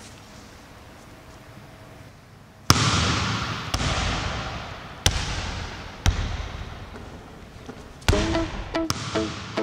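A basketball bouncing on a gym floor, five single bounces about a second apart, each ringing out with a long echo through the empty hall, after a quiet start. Music comes in near the end.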